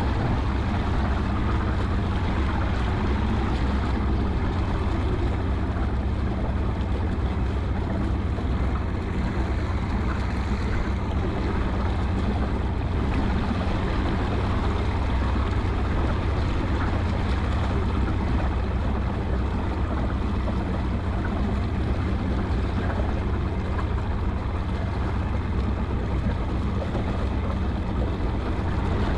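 A motorboat's engine running steadily under way, with a low even hum and a wash of wind and water noise over it.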